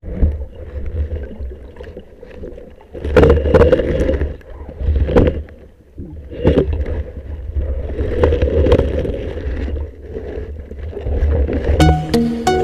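Water sloshing and gurgling around a diver's camera, in uneven surges over a constant low rumble. Music comes in near the end.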